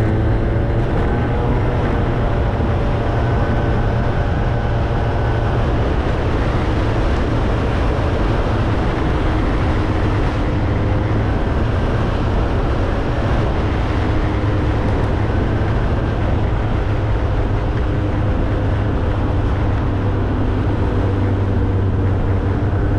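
Motorbike riding at a steady speed: the engine runs with a constant low drone under a steady rushing noise, with no change in pace.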